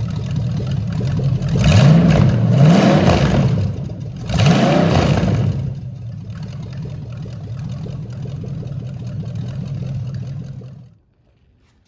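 Rebuilt Chevrolet 5.7-litre small-block V8 running: revved up and back down several times in the first five seconds, then settling to a steady idle that stops about eleven seconds in.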